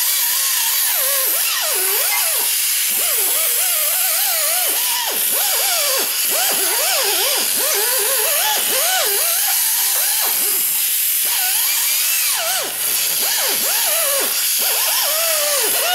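Air die grinder with a 2-inch Roloc surface-conditioning disc running at high speed while it scours rust off the exhaust flange; its whine wavers up and down as the disc is pressed on and eased off. It cuts off right at the end.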